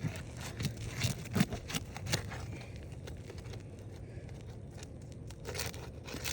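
Old, brittle asphalt shingles being pried up, the sealant strip between them tearing loose with irregular sharp cracking and crackling, busiest in the first couple of seconds.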